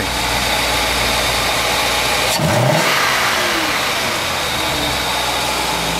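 A 1977 Mercedes 450SLC's 4.5-litre V8 running. About two and a half seconds in it is revved up, with a quick rise in pitch, and it is held at higher revs before settling back to idle near the end. The engine keeps running here, although the fault it has made it run erratically and stall.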